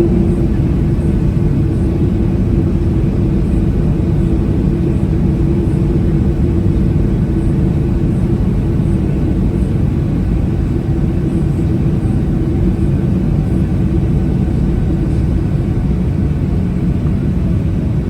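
Boeing 737-800's CFM56-7B turbofan engines at taxi idle, heard inside the cabin beside the engine: a steady low rumble with a steady hum.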